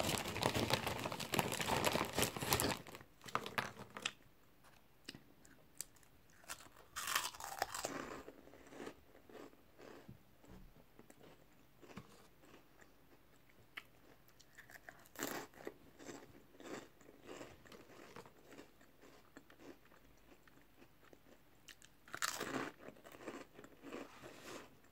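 Crisp packet rustling loudly for the first few seconds, then close-up crunching and chewing of ring-shaped potato crisps in short bouts, loudest about 7, 15 and 22 seconds in.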